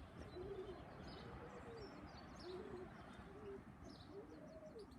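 Domestic pigeons cooing faintly: a run of short, low, arching coos one after another, with faint high chirps of small birds.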